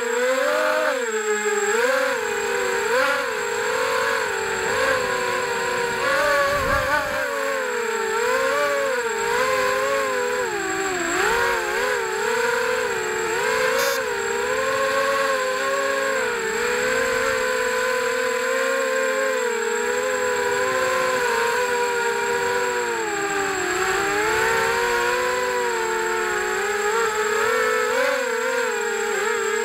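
Brushless motors and propellers of an FPV racing quadcopter, heard from its onboard camera, whining with a pitch that rises and falls continually as the throttle changes. A faint steady high tone runs under it.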